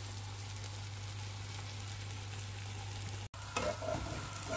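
Omelette frying in oil in a nonstick pan: a steady sizzle with fine crackling over a low hum. After a brief dropout about three seconds in, a slotted spatula scrapes and slides against the pan at the omelette's edge, louder than the sizzle.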